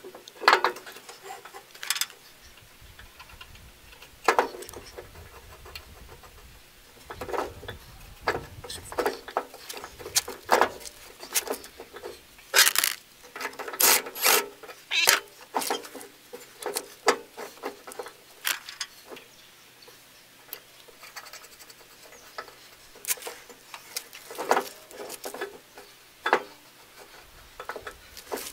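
Irregular clinks and knocks of steel tools and bolts being worked on a Bush Hog Model 305 rotary cutter's gearbox fittings. The knocks are most frequent about a third to halfway through.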